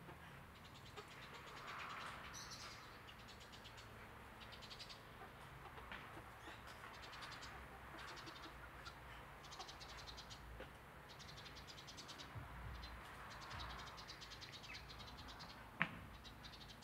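Faint outdoor ambience in a chicken run: short trains of rapid, high-pitched chirping recur throughout, with a soft low murmur twice and one sharp click near the end.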